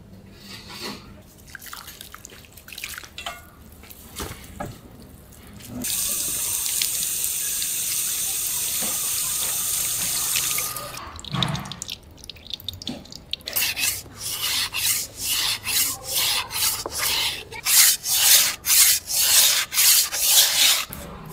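A few light drips and splashes, then water from a tap running steadily into a metal strainer for about five seconds. About two seconds after it stops, a kitchen knife is stroked back and forth on a whetstone in quick, regular strokes, roughly two and a half a second.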